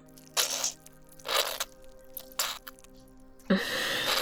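Wet, squishy ASMR slime sounds: four short squelches, the last one longer and loudest, over soft steady background music.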